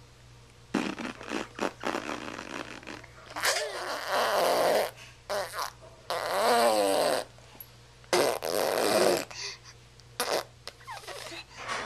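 Baby blowing raspberries (zerberts), a run of about six buzzing lip-and-tongue bursts, some brief and some about a second long. In the longer ones his voice sounds through, with a wavering pitch.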